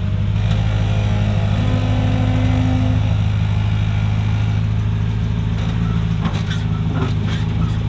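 Jeep engine running steadily at low revs while crawling a rock trail, with a few short knocks near the end.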